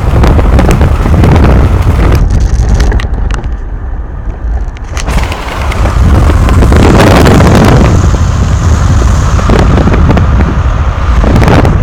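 Loud road and wind noise from a moving car, with heavy buffeting and crackling on the microphone.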